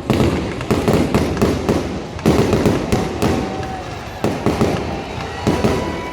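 Aerial fireworks display: a rapid string of overlapping bangs and booms, several a second, with crackling between them.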